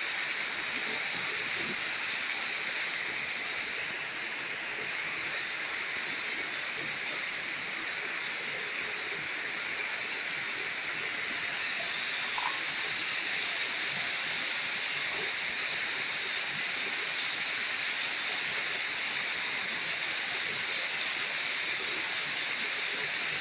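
Steady rush of water running down a rock sluice channel, an even hiss that holds at one level throughout.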